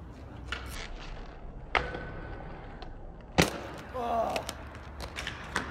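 Inline skates clattering on concrete and a metal rail: a few sharp hits of wheels and frames landing, one followed by a brief metallic ring, the loudest about halfway through, with wheels rolling between them.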